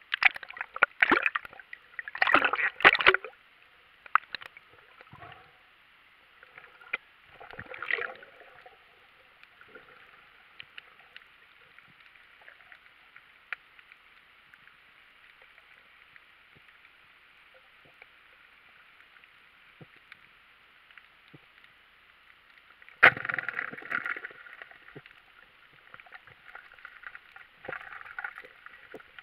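Water splashing and sloshing as a diver ducks under, then a faint steady hiss heard through an underwater camera housing. About 23 seconds in comes one sharp crack, a speargun firing into a sheepshead, followed by a few seconds of louder rustling commotion.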